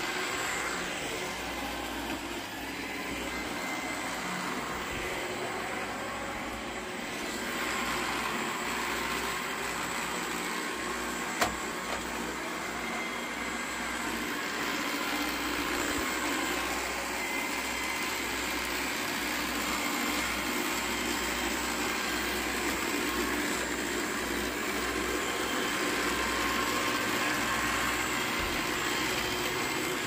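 Roomba 694 robot vacuum running across the floor, a steady whir of its vacuum motor and brushes, growing slightly louder over the second half. One sharp click about eleven seconds in.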